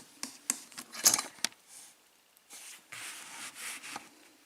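Metal clicks and knocks as a padlock is handled and set into a bench vise, the loudest about a second in, followed by a few seconds of rubbing and scraping.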